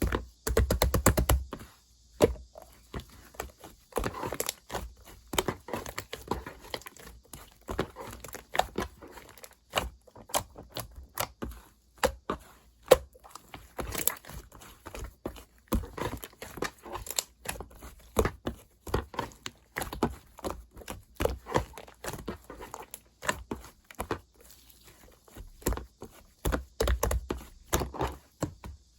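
Fondant slime being pressed and squished by hand, giving a dense, irregular run of small clicks and crackles. Heavier low thuds come near the start and again near the end.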